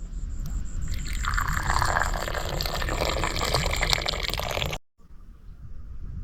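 Liquid being poured, a steady splashing hiss that starts about a second in and cuts off sharply just before five seconds.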